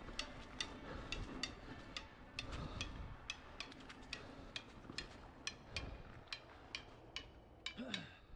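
Electric mountain bike rolling, with a low tyre rumble and irregular sharp ticks and rattles from the bike, a few each second.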